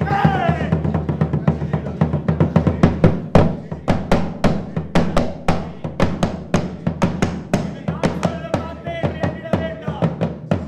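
Rapid hand drumming on a barrel drum, sharp strikes several a second over a low steady drone. A voice chants at the start and again near the end.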